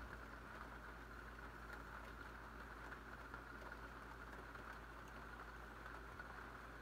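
Faint, steady hum and hiss of room tone, with no distinct events.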